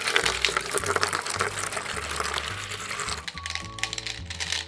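Small balls rattling and clicking inside a plastic measuring jug as it is tipped to pour and then set upright, for about three seconds, over background music.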